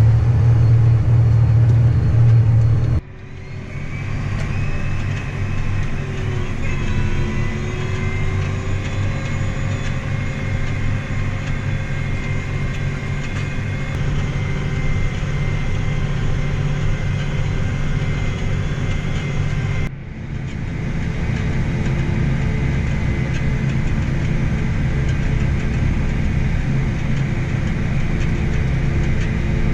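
A vehicle engine running steadily, a low hum with a faint whine above it, interrupted by two abrupt cuts about three seconds in and near twenty seconds.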